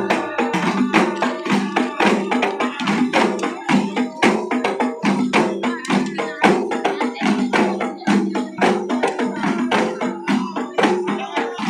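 Terbangan frame drums (rebana) beaten by hand in a steady, fast rhythm, with a group of men chanting dikir over them.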